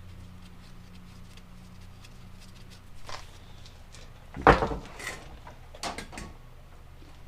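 A sharp metal knock about four and a half seconds in, with a few lighter clicks around it, from a hammer tapping the new ball joint bolt home through the suspension knuckle. A faint steady low hum underneath.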